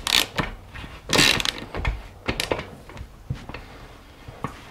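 Motorcycle rear axle nut being fitted and tightened on the wheel spindle: two short rasping bursts of metal working in the first second and a half, then scattered light clicks and knocks of tool and parts.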